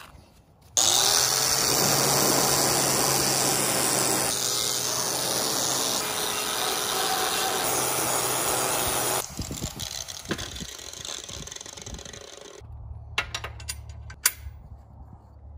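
Cordless grinder with a wire brush spinning up about a second in and scouring rust off steel tubing, running loud and steady for about eight seconds before it stops. Near the end a few light metal clicks as clamps are set on the steel welding table.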